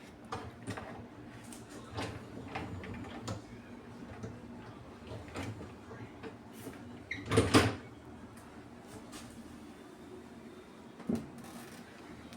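A dishwasher being handled: a series of light knocks and clicks like a door or cupboard, with one louder clatter about seven and a half seconds in and a single knock near the end.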